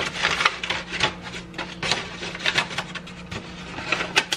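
Hands handling panettone dough and a paper panettone mold: an irregular run of quick rustling and rubbing strokes.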